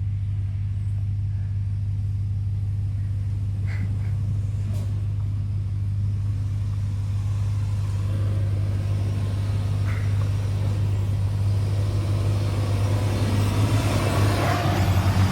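Ford F-150 pickup's engine running under load as it drives up a rocky off-road trail, with a steady low hum that grows louder and busier over the last few seconds. A few faint knocks sound along the way.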